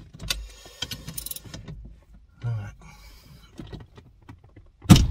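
Metal socket tools clicking and rattling as a wrench strains against a tight steering-wheel centre bolt, with a man's grunts of effort. A sharp knock comes near the end.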